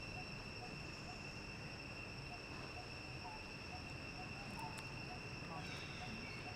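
Steady high-pitched insect chorus of crickets or cicadas, droning without a break, with a faint chirp repeating a few times a second. Near the end a few short, falling squeaky calls begin.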